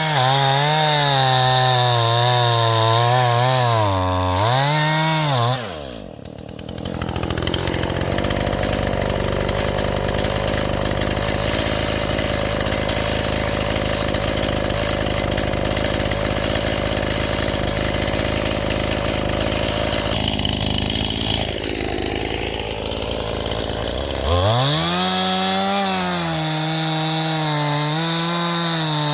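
Stihl MS181 two-stroke chainsaw cutting firewood, its engine pitch wavering as the chain bites into the wood. About five seconds in the revs drop and it runs on at a lower, steadier note for most of the time. About 24 seconds in it revs back up and cuts again, the pitch rising and falling under load.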